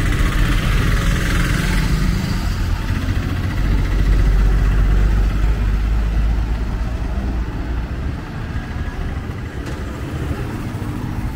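Road traffic: a motor vehicle engine running close by, a low rumble that is loudest mid-way and eases off about eight seconds in.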